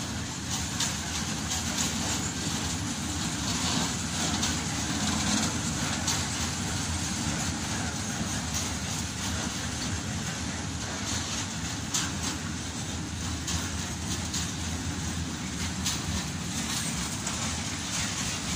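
A long freight train of open-top wagons rolling past at steady speed: a continuous rumble and rushing of wheels on rail, with scattered sharp clicks as the wheels cross rail joints.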